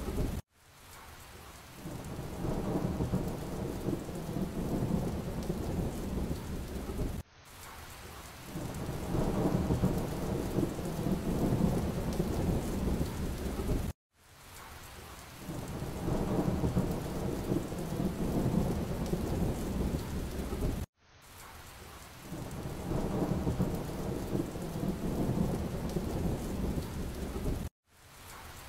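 Rain-and-thunderstorm ambience track, a steady rumbling wash of rain noise looping about every seven seconds. Each loop cuts off abruptly to silence, then swells back in over a second or two.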